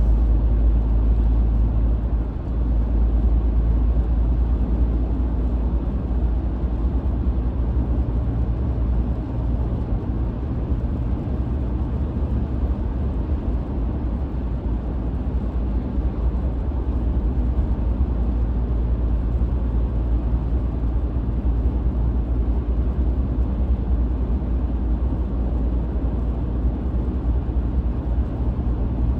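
Steady road noise of a car being driven: a low, even rumble of engine and tyres.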